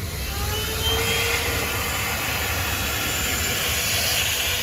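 THISWORX 12V corded handheld car vacuum running steadily, a rush of air with a motor whine, as its nozzle is worked over a car seat to suck up sand.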